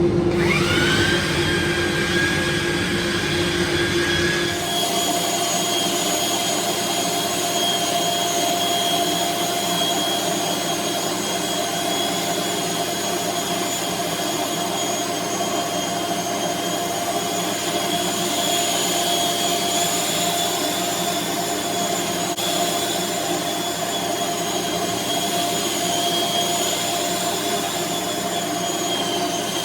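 Electric woodworking power tool motor spinning up with a rising whine, shifting pitch about four and a half seconds in, then running steadily with a high whine over a rushing noise.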